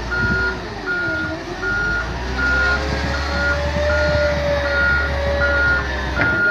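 Bulldozer's reversing alarm beeping steadily, about one beep every 0.8 s, over its diesel engine, whose pitch rises and falls as it works.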